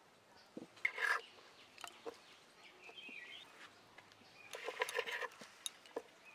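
Faint knife taps and scrapes on a stone slab as raw fish fillet is sliced into strips. A fowl calls in the background, with a quick series of calls about four and a half seconds in.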